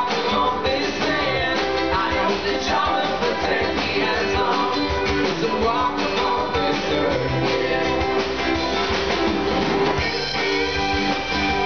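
Live band playing through a PA: electric and acoustic guitars over a drum kit, with sliding guitar notes.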